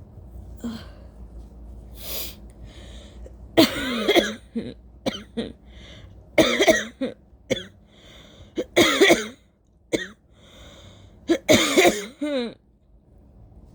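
A woman coughing repeatedly in four main harsh bouts, with short single coughs between them. She puts the coughing down to her allergies.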